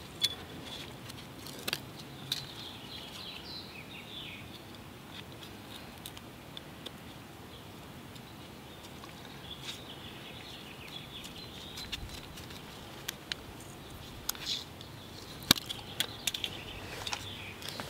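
Quiet outdoor background with small birds chirping on and off and scattered sharp clicks. Near the end a cluster of clicks and rustles comes from nitrile-gloved hands handling the next badge.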